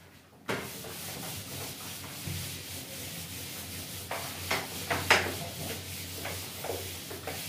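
Whiteboard duster rubbing across a whiteboard, wiping it clean, starting about half a second in, with a few sharper swipes around four to five seconds in.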